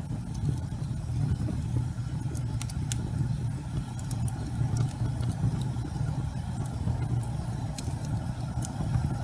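Logs burning in a fireplace: a steady low rumble of flames with scattered sharp crackles and pops from the burning wood.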